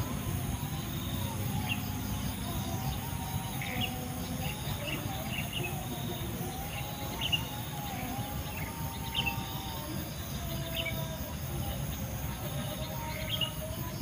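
Night-time outdoor ambience: a steady low rumble with a faint wavering drone, and short high chirps every second or two.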